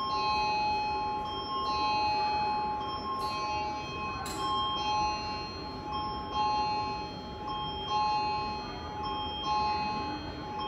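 Electronic station chime in a subway concourse: clear bell-like tones sound as a short figure that repeats every second or two. A single sharp click comes about four seconds in.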